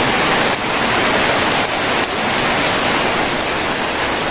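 Very heavy rain pouring down, a loud steady hiss.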